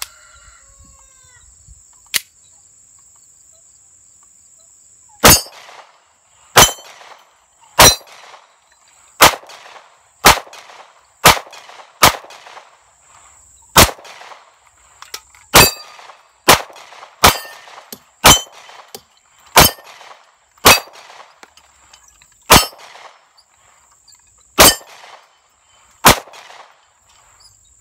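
A Glock 26 9mm pistol fires a string of 17 single shots, roughly one a second with a few longer gaps, with clangs from the steel plate targets. The Federal aluminum-case rounds feed and fire from the Magpul 17-round magazine without a stoppage. A steady high insect buzz runs underneath.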